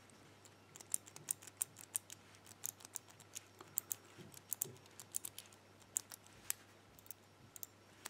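Number wheels of a Burg Wächter four-wheel combination padlock clicking as they are turned one number at a time while the shackle is pulled, a faint run of small, sharp, irregular clicks; the turning is feeling for the wheel that binds, to decode the combination past its false gates.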